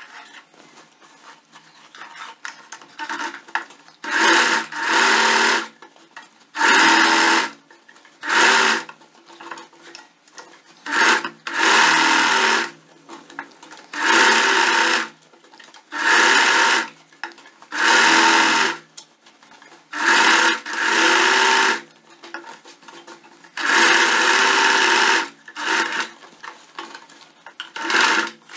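Singer Facilita sewing machine stitching in short runs of about a second each, roughly a dozen, with brief pauses between. The stitching starts about four seconds in, after faint fabric handling.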